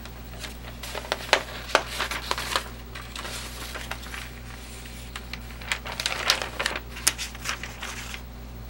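A sheet of printing paper peeled off a tacky homemade gelatin printing plate and handled, crinkling and rustling in two spells, about a second in and again around six seconds in.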